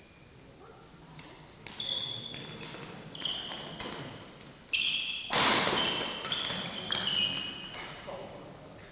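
Badminton doubles rally in a sports hall: sharp rackets striking the shuttlecock and short high squeaks of shoes on the hall floor, with a loud noisy burst about halfway through, after which the rally stops.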